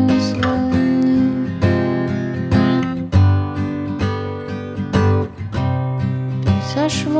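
Acoustic guitar strumming chords in a steady pattern, an instrumental passage without singing.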